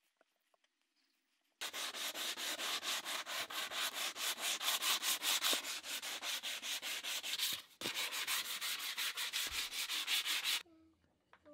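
Sandpaper rubbed by hand back and forth along a wooden hammer handle in quick, even strokes, about five a second. It starts about a second and a half in, breaks briefly about eight seconds in, and stops abruptly about a second before the end.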